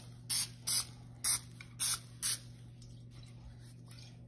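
Aerosol can of Pam cooking spray giving five quick, short sprays in the first two and a half seconds, then stopping.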